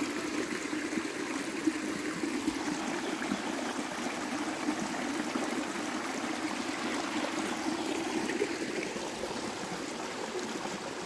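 Shallow, rocky stream running over stones: a steady trickle of flowing water.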